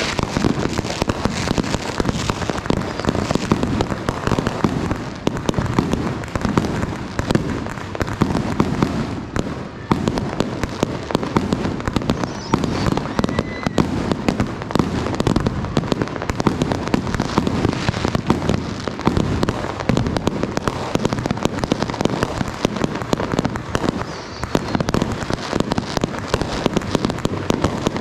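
Fireworks and firecrackers going off in a dense, unbroken crackle of rapid overlapping pops.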